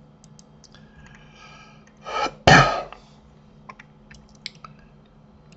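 A man clearing his throat once, about two seconds in, in two quick pushes with the second louder. A few faint clicks of a computer mouse come before and after it.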